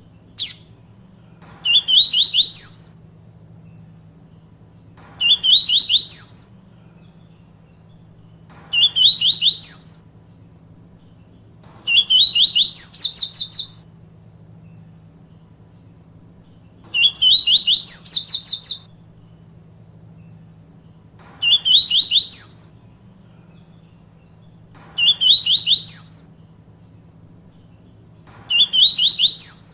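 Papa-capim seedeater singing its 'tui tui viviti' song: a phrase of rapid, high notes, each burst lasting one to two seconds, repeated eight times about every three and a half seconds. A single sharp note comes just after the start.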